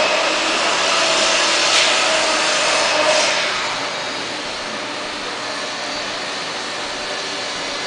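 Steady whirring and hissing of machinery, with a faint rising whine near the start and two short louder hisses about two and three seconds in.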